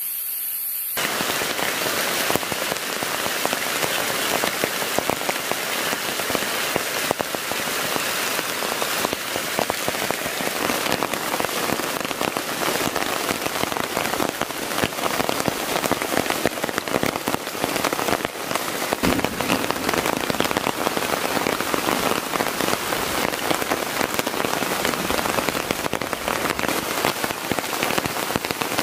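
Heavy rain falling steadily on a nylon tent fly and the forest leaf litter around it: a dense patter of drops that cuts in abruptly about a second in.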